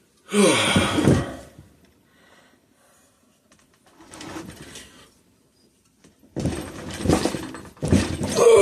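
Heavy metal engine parts scraping and clunking on a workbench as the crankshaft comes out of the engine: a loud scrape with a falling pitch, then a long run of knocks and scraping near the end.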